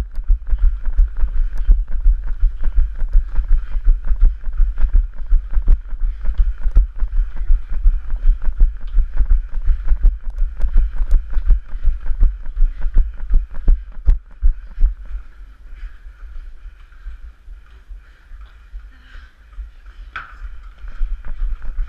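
Running footfalls on stone paving, carried as low jolts through a head-mounted GoPro camera, about three strides a second over a steady hiss. For several seconds near the end the thumps turn softer and sparser, and a single sharp click sounds just before they pick up again.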